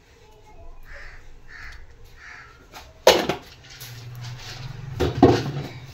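Wooden spatula stirring gram flour roasting in ghee in a nonstick frying pan: soft scraping, with two sharp scrapes or knocks against the pan, about three seconds in and again about two seconds later.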